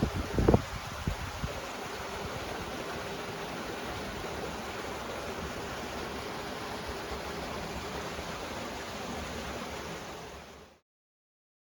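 Steady rushing outdoor noise, with wind buffeting the microphone in a few low thumps about half a second in. It fades out and cuts to silence near the end.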